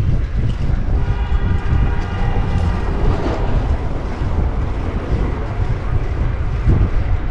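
Heavy wind rumbling on the microphone of a bike-mounted camera as the fixed-gear bicycle rides fast through city traffic. About a second in, a held, wavering pitched tone with many overtones sounds over it for about two seconds, like a horn or the squeal of a passing train.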